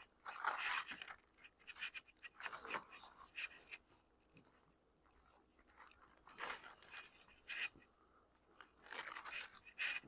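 Faint rustling of paper pages being handled, in short scattered bursts.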